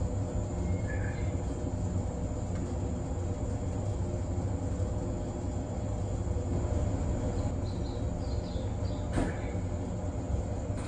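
Steady low hum of a stationary JR 189 series electric train's onboard equipment idling, with a constant thin high whine over it. A single sharp click comes about nine seconds in.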